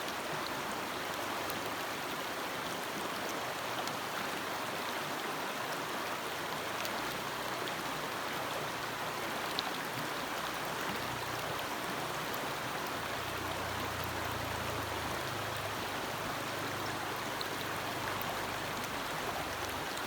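A forest stream flowing, with a steady, even rush of water and a few faint ticks of droplets.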